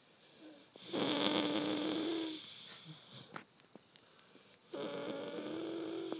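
Loud snoring: two long, buzzing snores, one starting about a second in and a second near the end, with quieter breathing between them.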